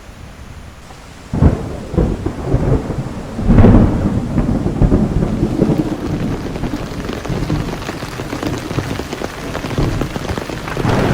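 Thunder cracks suddenly about a second in and again, louder, a couple of seconds later. Heavy rain then pours down steadily.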